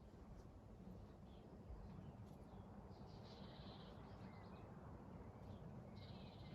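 Faint birdsong: a few short high trills and scattered chirps over a low, steady outdoor hush, with one trill about three seconds in and another near the end.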